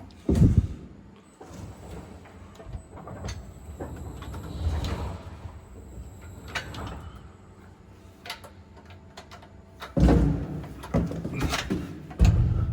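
Metal clunks, scrapes and clicks of a bottle rinser's clamp being wound round on its cam rail and worked with hand tools. Heavy thuds come about half a second in, at about ten seconds and again near the end, with lighter knocks and rattles between.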